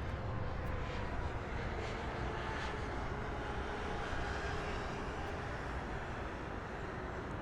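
Jet airliner engines: a steady rushing noise with a faint whine that slowly drops in pitch.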